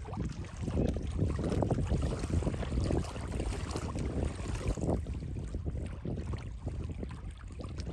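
Wind noise on the microphone over water sloshing around a man wading beside a barrel raft.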